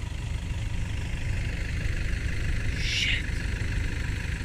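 A vehicle engine idling with a steady low rumble, with a brief rustle about three seconds in.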